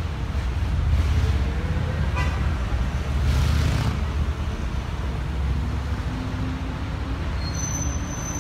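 Street traffic heard from the open top deck of a moving double-decker tour bus: a steady low rumble of the bus and passing cars, with a short horn toot about two seconds in and a brief hiss a little after three seconds.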